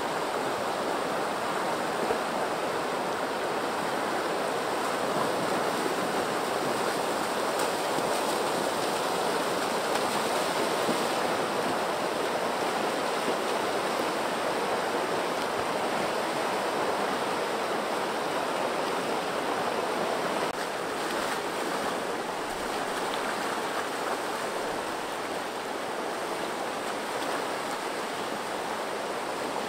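River water rushing over a rocky cascade: a steady white-water noise, a little softer from about two-thirds of the way through.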